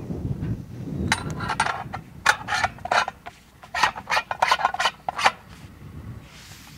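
Steel split spoon sampler halves being fitted together by hand: a run of short metallic clicks and scrapes, about four a second, for around four seconds.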